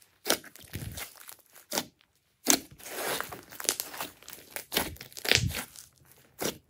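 Glossy slime being squeezed and folded by hand: irregular bursts of wet crackling and air-pocket pops. There is a brief pause about two seconds in, then a longer run of crackling and the loudest cluster of pops around five seconds in.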